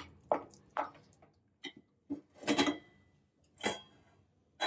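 Steel cookware being handled: about six separate knocks and clinks, two of them past the middle ringing briefly like metal, as a steel plate lid is set on a pot.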